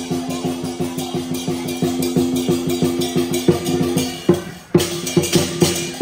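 Chinese dragon dance percussion: a large drum beaten in a rapid rhythm with cymbals and gong ringing over it. It breaks off briefly about four and a half seconds in, then starts again.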